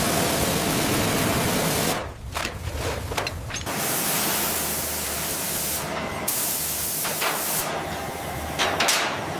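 High-pressure spray hissing loudly in several stretches that cut off and start again every two seconds or so.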